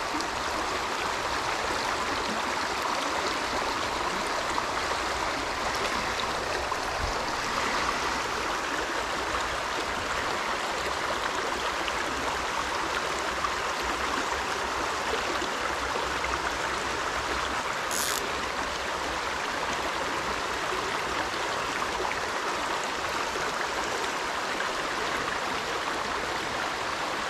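A shallow, rocky brook running over stones in small riffles: a steady rush of water. A brief high-pitched sound comes about two-thirds of the way through.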